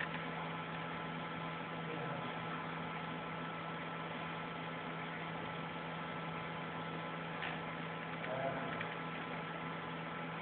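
Steady electrical hum with an even background hiss.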